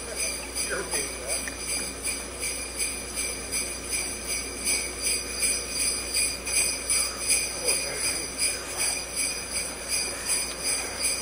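Sleigh bells jingling in a steady, even rhythm.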